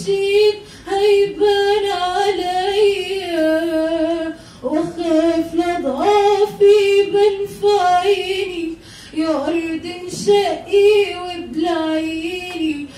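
A teenage girl singing solo and unaccompanied into a handheld microphone, holding long notes in phrases of a few seconds with short breaths between them.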